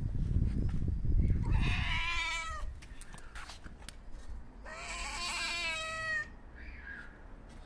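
Ginger-and-white stray cat meowing for attention: a short meow about two seconds in and a longer one about five seconds in, with a faint brief call after. A low rumble underlies the first couple of seconds.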